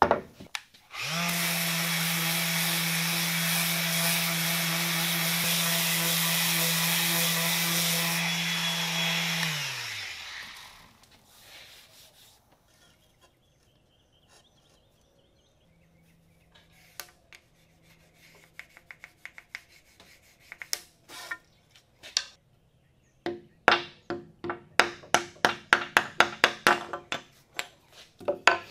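An electric motor starts about a second in, runs steadily with a hiss for about eight seconds, then winds down. After a quiet stretch come scattered light taps, then a quick run of sharp mallet knocks on the wooden bandsaw insert in its cast iron table near the end.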